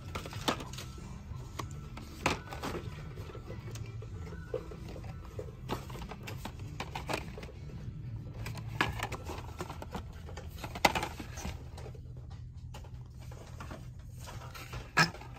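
Shop-aisle room tone: a steady low hum under faint background music, with scattered light clicks and taps every second or two.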